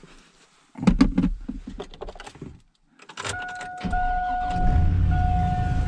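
Clunks and knocks of someone getting into a pickup truck's cab, then about three seconds in a steady warning chime starts and the truck's engine starts and settles into a low, steady idle heard from inside the cab.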